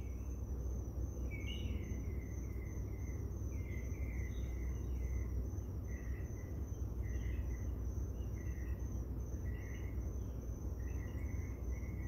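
Night insects: a steady high-pitched trill, with a lower chirp repeating roughly once a second, over a steady low rumble.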